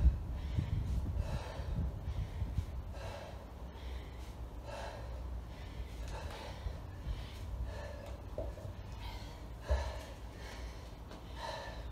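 Heavy breathing with forceful exhalations roughly once a second, in time with kettlebell swings. Near the end there is a dull thud as a kettlebell is set down on the floor mat.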